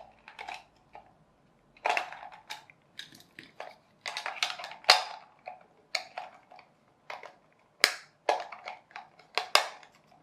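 Irregular sharp plastic clicks and knocks from a toy remote-control car's parts being handled and pushed into place.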